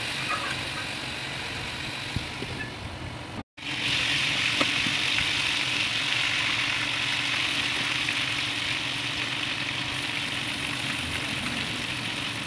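Hot oil sizzling steadily around a whole chicken frying in a wok. The sound drops out for a moment a few seconds in, then comes back louder, with a faint tick or two of a utensil against the pan.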